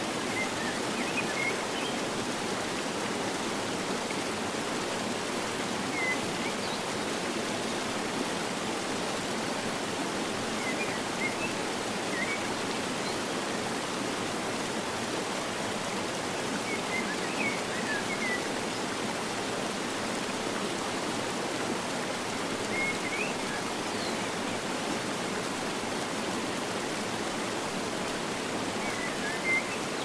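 A mountain river cascading over rocks in a steady, even rush of water. Short bird chirps come through it every five or six seconds.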